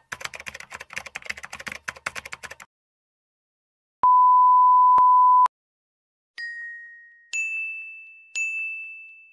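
Editing sound effects: a rapid run of clicks for about two and a half seconds; after a short gap, a steady test-card beep tone for about a second and a half; then bell-like dings about once a second, each ringing and fading, the first lower in pitch than the rest.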